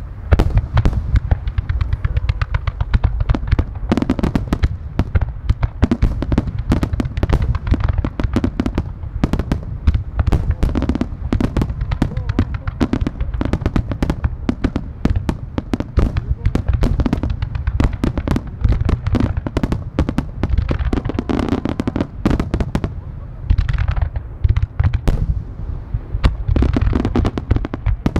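Starmine fireworks barrage: aerial shells launching and bursting in rapid succession, making a dense, continuous run of deep booms several a second, with a few short lulls.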